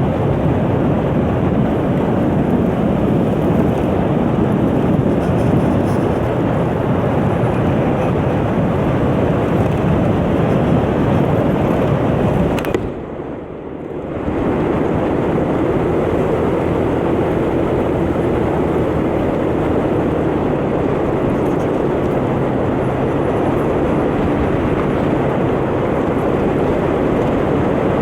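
Wind rushing over the microphone with a 125cc motor scooter's engine running underneath as it rides along. The noise dips briefly a little under halfway through, then picks up again.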